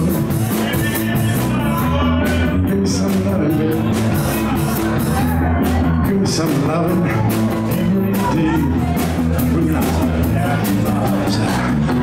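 Rock trio playing live: electric guitar, bass guitar and drums together, with cymbal strokes keeping a steady beat.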